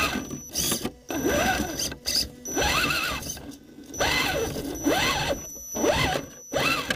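Electric motor and gear train of a 1/10 Axial SCX10 Honcho rock crawler whining in repeated bursts of throttle, each rising then falling in pitch, with drivetrain rattle, heard from a camera inside the truck's body as it climbs rocks.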